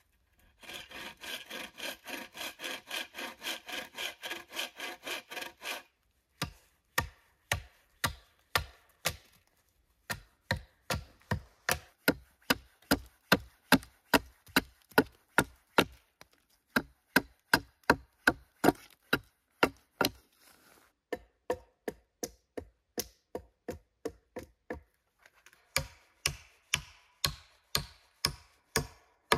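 A hand saw cutting wood in quick, even strokes for about five seconds. Then a long run of sharp knocks, about two a second, in bursts with short pauses.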